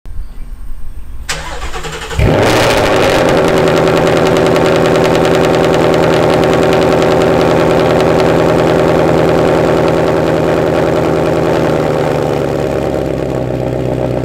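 Ford Mustang engine starting about two seconds in, catching with a loud burst and settling into a steady fast idle through its quad-tip exhaust. The idle drops slightly near the end.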